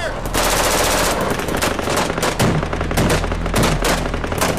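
Machine-gun fire: rapid automatic bursts of many shots a second, densest just under a second in.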